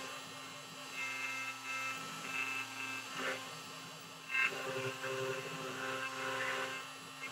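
CNC router engraving lettering into a red oak block with a small cone-shaped bit: a steady spindle whine under higher machine tones that start and stop every second or so as the bit moves from letter to letter.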